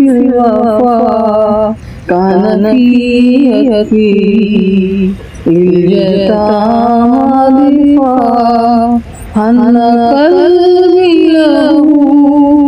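A solo voice singing an Islamic devotional naat in long, ornamented phrases with no beat, pausing briefly for breath three times.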